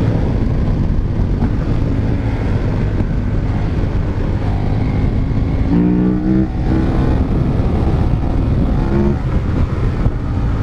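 KTM 1190 Adventure's V-twin engine, remapped and fitted with a full exhaust system, pulling at road speed, with wind rush on the microphone. The revs rise briefly about six seconds in and again about nine seconds in.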